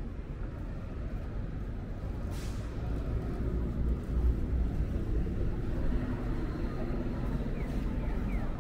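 City street traffic, with a heavy vehicle's engine rumble that swells through the middle. A short hiss comes about two and a half seconds in.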